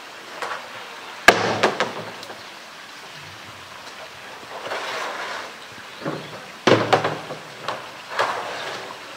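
Hollow blue plastic drum dropped, knocked and scraped about on concrete by a playing polar bear: a loud bang about a second in and another near seven seconds, with smaller knocks and scraping between.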